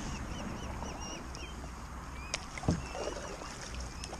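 Birds calling: a run of short, arched chirps repeated several times a second over a steady low rumble, with a couple of faint knocks in the middle.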